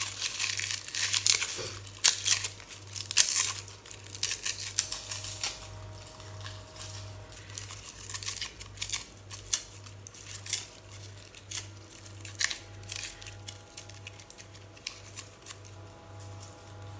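Dry, papery garlic skins crackling and tearing as a whole garlic bulb is peeled by hand over a stainless steel bowl. The crackles come quick and irregular, busiest in the first few seconds and sparser after.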